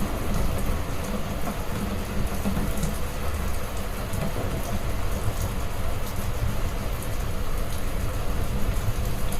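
Heavy rain falling steadily, an even hiss with faint scattered drop ticks over a constant deep low rumble.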